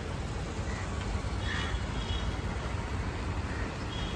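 Outdoor street ambience: a steady low rumble with a few faint high chirps about one and a half seconds in and again near the end.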